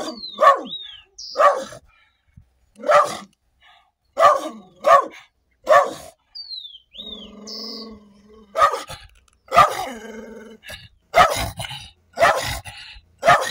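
A dog barking fiercely at close range, a dozen or so short sharp barks in clusters with a pause of about two seconds midway: hostile warning barks from a dog standing its ground with teeth bared.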